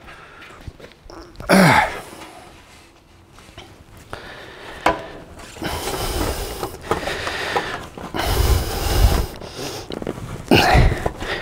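A sheet-metal car guard panel being handled and bent to close its curve: scraping and flexing noise building from about six seconds in, with low thuds around eight to nine seconds. A short, loud, breathy sound comes about a second and a half in and another near the end.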